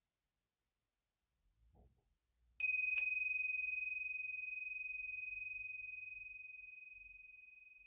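A small high-pitched metal bell or chime struck twice in quick succession, about two and a half seconds in, then ringing on and slowly fading.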